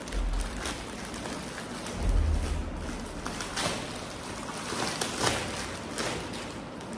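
Plastic courier bag rustling and crinkling as it is opened and its contents pulled out, with two dull low thumps, one right at the start and one about two seconds in.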